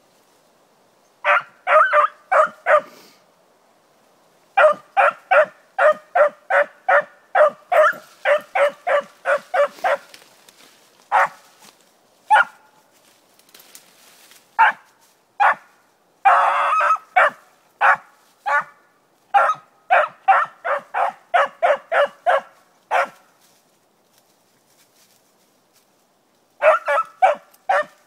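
Beagle barking as it trails a rabbit, giving tongue in runs of short, quick barks, two to three a second, with pauses of a few seconds between runs: the hound's cry while it follows the rabbit's scent.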